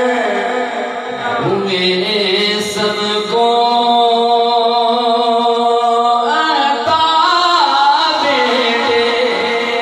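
A solo man's voice chanting devotional Arabic verse in long, held, ornamented notes.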